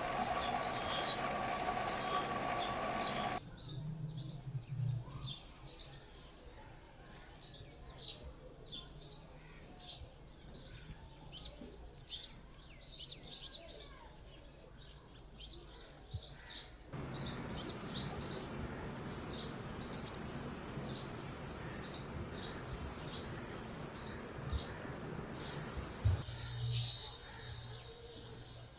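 Small birds chirping over and over in the background. A steady humming tone runs for the first three seconds, then stops. From just past the middle come several loud bursts of hiss, each a second or two long, with short gaps between them.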